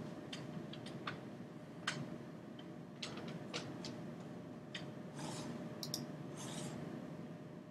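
Scattered light clicks of a computer mouse, about one a second, over low room noise with a faint steady hum. Two soft rushes of noise come about five and six and a half seconds in.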